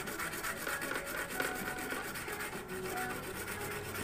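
Piston ring end rubbed back and forth on sandpaper, a steady scraping of fine strokes. The ring's end gap is being filed open because the ring was too tight to go into the cylinder sleeve.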